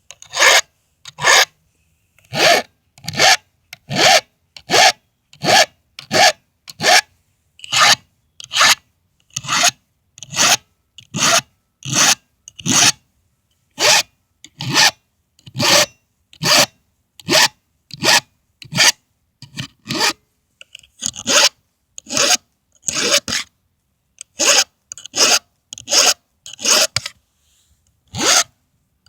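Round file rasping across the cutters of a Stihl MS 180 saw chain during sharpening. It is a steady run of short strokes, a little more than one a second, with brief pauses now and then.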